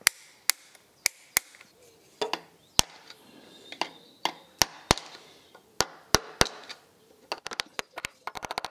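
Sharp metal taps of a chisel worked against a con rod big-end cap's bolts, bending the locking tabs against the freshly torqued nuts. The taps come singly, a half second to a second apart, and give way near the end to a fast rattle of clicks.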